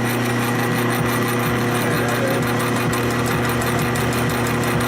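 Belt-driven shop machine's electric motor running steadily under cutting load, with a constant hum and whine, its drive belt freshly tightened to stop it slipping.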